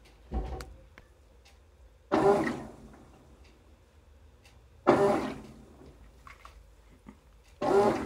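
GE GTW465ASN1WW top-load washing machine in its wash cycle, churning towels in sudsy water. The water swishes in three surges a few seconds apart, each starting sharply and fading over about half a second.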